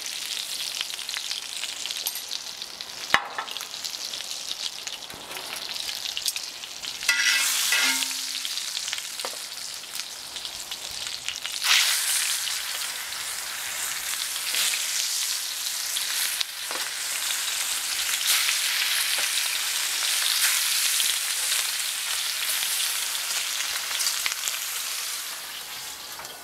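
Butter with minced garlic and paprika sizzling in a hot cast iron skillet over a charcoal fire, with a sharp tap about three seconds in. About twelve seconds in, a sandhill crane steak goes into the pan with tongs and the frying gets louder, then stays loud until it fades near the end.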